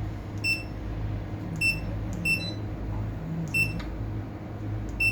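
Short electronic key-press beeps from an AIS unit's keypad as data is entered, four or five single beeps at uneven intervals over a steady low hum.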